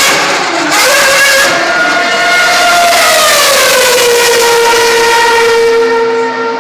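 A 2012 Formula 1 car's 2.4-litre V8 screaming at high revs as it passes. Its pitch falls over a couple of seconds as it goes by and draws away, then holds steady at a lower note.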